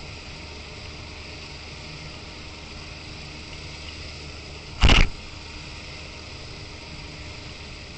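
Boat engine running steadily at a low, even drone. About five seconds in comes one short, loud burst of noise.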